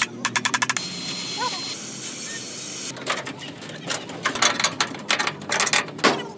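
A hammer tapping rapidly on a steel frame section, then a gas torch hissing steadily for about two seconds, then a run of louder, irregular metal knocks.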